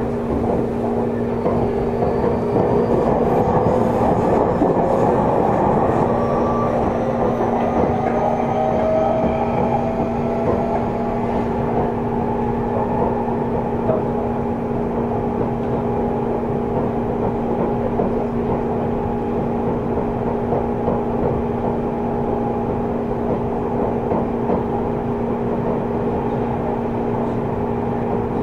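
Seibu 30000 series electric train heard from inside the car. The traction motor whine rises slowly in pitch over the first ten seconds or so as the train gathers speed, then it runs on steadily with wheel and rail noise over a steady hum.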